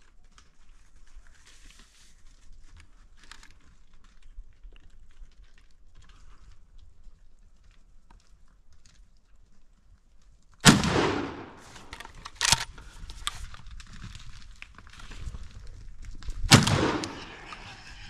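Shotgun fired three times in the second half: a loud shot near the middle, a smaller bang about two seconds later, and another loud shot near the end, each with a ringing tail. Before the shots only faint rustling is heard.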